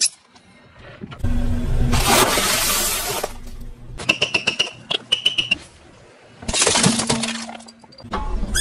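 Car tyre rolling over and crushing plastic and rubber toys: two long stretches of crackling and crunching, with a quick run of sharp clicks and short squeaks between them.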